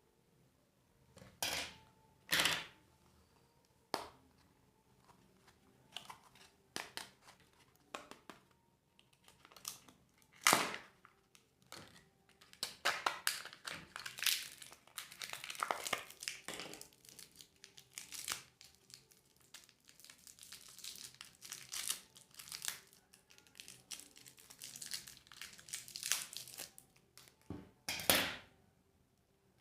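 Candy and surprise-egg wrappers being crinkled and torn open by hand: irregular crackling rustles with a few sharper tearing strokes, busiest in the middle stretch.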